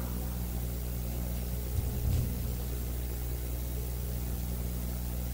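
Steady low hum with an even hiss, and a soft bump about two seconds in.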